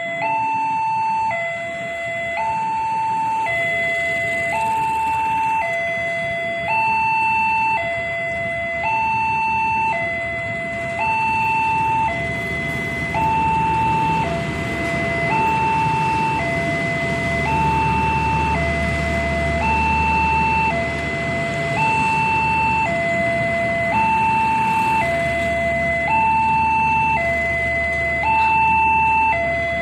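Railway level-crossing warning alarm sounding its two-tone signal, switching between a higher and a lower tone about once a second. A passenger train rumbles through the crossing from about halfway in.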